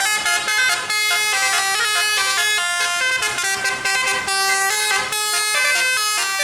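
Bus telolet musical air horns playing a fast tune of short stepped notes, several horns sounding together in chords, with a brief break about five seconds in.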